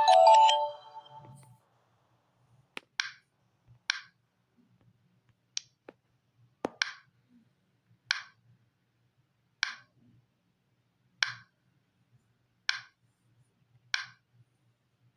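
A bright mallet-style alert tone from a Samsung Galaxy Tab A9 plays its last notes and fades out in the first second and a half. Then about ten short, sharp taps on the tablet follow at irregular gaps of about a second, two of them as quick doubles.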